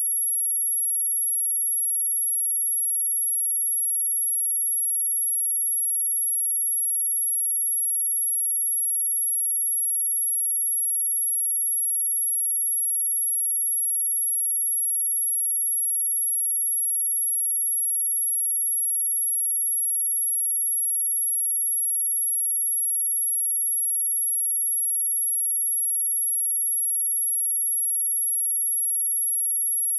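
A steady pure sine-wave test tone at 11241 Hz, a single very high-pitched whistle-like tone held at constant level.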